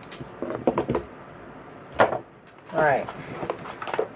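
A few sharp clicks and knocks of packaging and gear being handled, the loudest about two seconds in. A brief spoken "alright" comes near the end.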